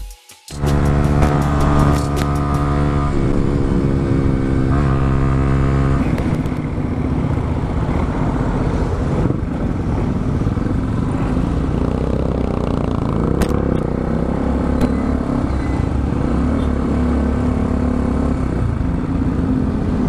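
Kawasaki Rouser NS160 FI's single-cylinder engine running while the bike is ridden, with wind and road noise on the camera. For the first six seconds or so the engine holds a steady note, then it turns rougher and more mixed with noise as the bike moves slowly through traffic.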